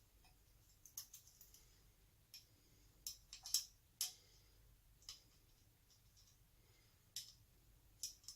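Scattered light clicks and taps of small metal parts being handled while the spring and lever are fitted onto the choke shaft of an SU HD8 carburettor.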